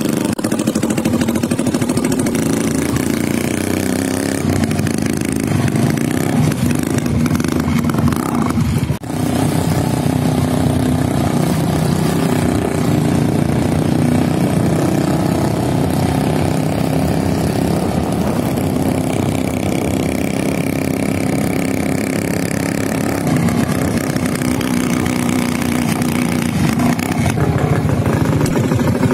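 Motorcycle engine running steadily at road speed, with a brief drop about nine seconds in.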